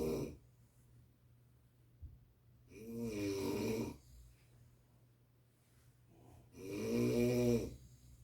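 A person snoring heavily in sleep: two long, rasping snores about four seconds apart, with the tail of another just as the sound begins.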